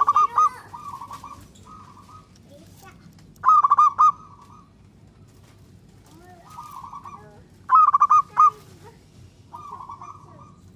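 Zebra dove (perkutut) singing: three loud, quick phrases of staccato cooing notes, each under a second long and about four seconds apart, with softer cooing notes in between.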